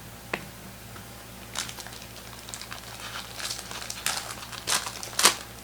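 Trading cards being handled between reveals: a run of small crinkly rustles and clicks, getting louder toward the end, with one sharp click just after the start.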